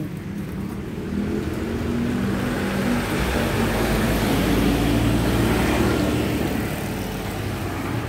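A motor vehicle passing by: engine and road noise swell, are loudest with a low rumble midway, then ease off.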